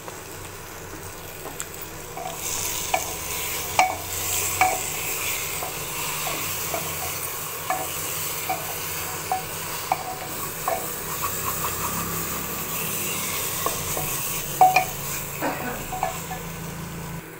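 Jackfruit and masala sizzling in hot oil in an open pressure cooker while a spatula stirs them, with irregular scrapes and taps of the spatula against the metal pot. The sizzle grows louder about two seconds in. The masala is being fried until the oil separates.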